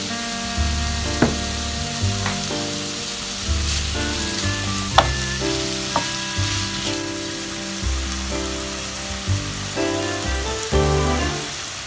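Courgette, carrot and onion sizzling as they sauté in a frying pan, with a spatula stirring them and knocking against the pan a few times. Background music with sustained notes and a low bass plays along.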